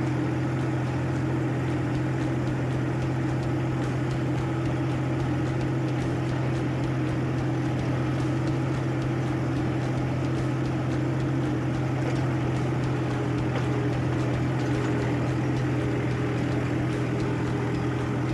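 Mahindra 475 DI tractor's four-cylinder diesel engine running steadily at a constant speed, heard close up from the driver's seat while pulling a cultivator.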